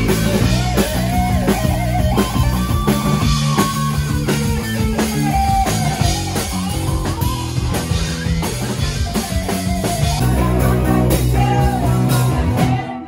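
Live rock band playing loud: electric guitar lead lines with bends over bass guitar and a drum kit. The music drops off suddenly near the end.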